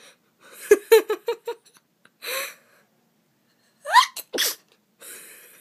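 A woman sneezing: about four seconds in, a rising "ah" cut off by a sharp burst. Before it, about a second in, come a run of quick broken voiced breaths building up to it, and near the end a breathy exhale follows.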